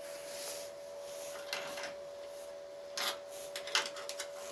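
Steel repair panel rubbing and scraping against the car's bodywork as it is worked into place, with a few short scrapes about one and a half, three and nearly four seconds in.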